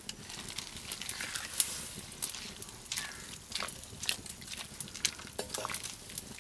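Wooden spatula stirring chopped greens in a wok of hot water, with irregular clicks and scrapes as it works through the leaves against the pan.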